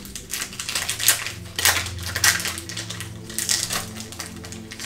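Foil booster-pack wrapper being torn open and crinkled by hand, a run of sharp crackling rustles.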